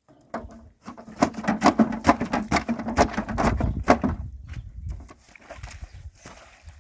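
Bare feet treading a soaked blanket on a plastic tarp: a quick run of wet slaps and squelches for about three and a half seconds, then quieter.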